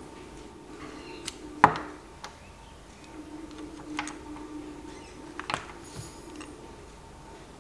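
Metal clicks and knocks of an old Union cylinder rim nightlatch being worked loose with a screwdriver and lifted off its mounting plate. There are about half a dozen scattered sharp clicks, the loudest about a second and a half in.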